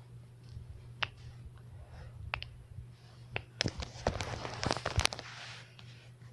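Knuckles cracking: a few separate sharp pops, then a quicker run of pops with some rustle of hands between about three and a half and five seconds in.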